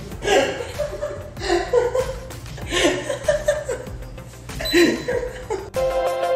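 A person laughing in about four separate bursts over faint background music. Near the end the laughter cuts off and electronic dance music with a steady beat starts.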